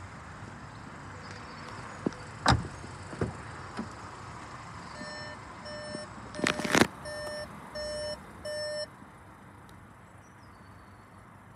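A few knocks and thumps, the loudest about two and a half seconds in, then a Skoda's in-car warning chime beeping in an even string of about half a dozen beeps, with a loud double thump among them; the chime stops about nine seconds in.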